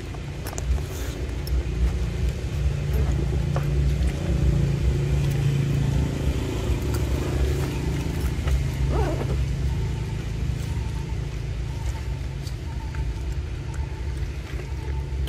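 Steady low rumble of a running motor, with a brief high squeak about nine seconds in.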